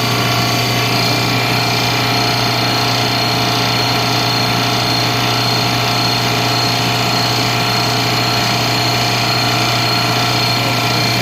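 JB F6 refrigerant recovery machine running with a steady, unchanging hum, its compressor drawing refrigerant out of an air-conditioning system into a recovery cylinder.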